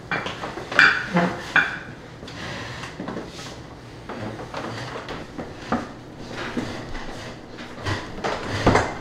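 Tableware clinking at a dinner table: bowls set down on plates and spoons tapping and scraping in bowls. A few sharp, ringing clinks come in the first two seconds, with more knocks near the end.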